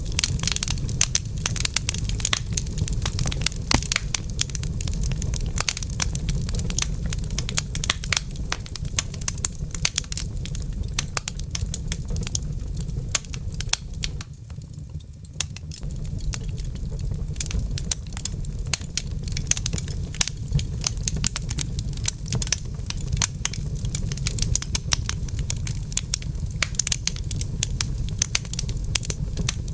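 Wood fire in a fireplace crackling, with frequent sharp pops and snaps over a steady low rumble. The crackling eases briefly about halfway through, then picks up again.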